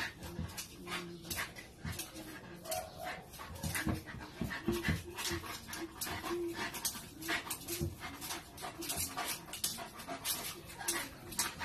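Dog panting hard and fast while mounting another dog, a quick irregular run of breaths with a few faint short whines.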